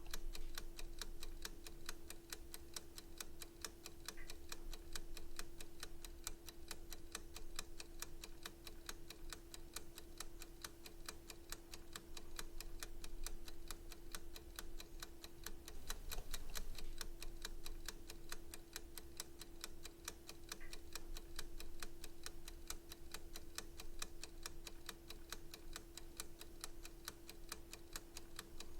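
Clock ticking steadily and evenly, with a faint steady hum underneath that drops out briefly about halfway through.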